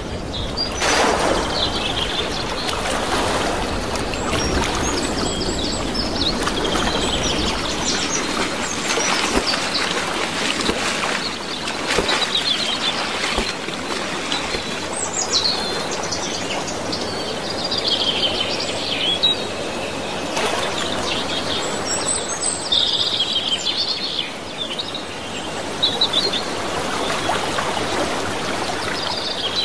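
Bird calls in runs of short, high, falling chirps over a steady hiss of wind and water, with a few sudden splashes as an osprey plunges into the water.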